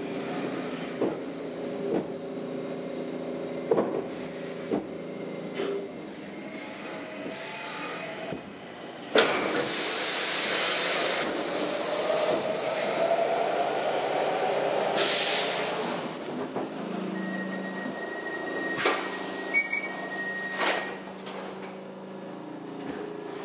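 Stockholm Metro C6 train at a station: a steady low whine with clicks and knocks, then loud stretches of air hissing, a rising hum partway through, and a steady high tone later on.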